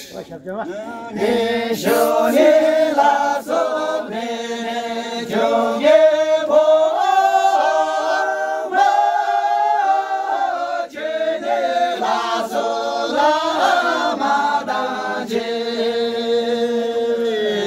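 A group of men singing together unaccompanied, one melody line sung in chorus with long held notes. A new phrase begins right at the start after a short breath.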